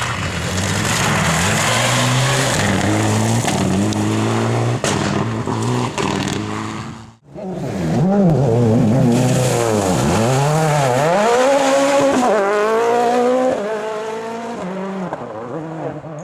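Rally car engines revving hard at speed, the pitch stepping and swooping up and down with gear changes and throttle lifts. About seven seconds in the sound cuts off sharply and a second car's engine comes in, again swooping down and back up several times.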